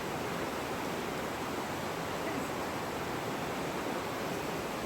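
Steady rush of a waterfall: water falling and churning without a break.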